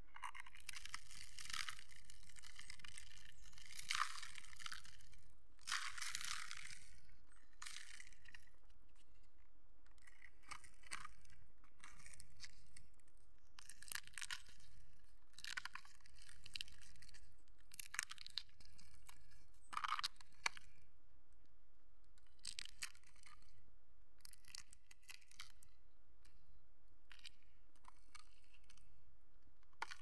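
Charred shells of grill-roasted chestnuts crackling and tearing as fingers peel them, in a run of short, irregular crackles.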